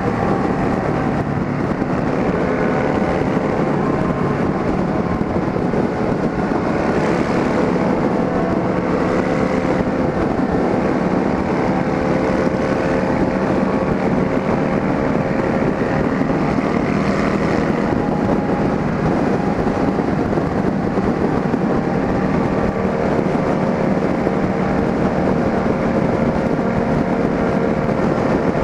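Yamaha Drag Star and Fazer 600 motorcycles with straight-pipe exhausts, running at a steady cruising speed with an even, continuous engine note, and wind on the microphone.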